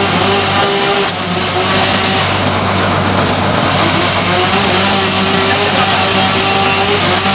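Sawmill machinery running steadily, with a constant engine-like hum.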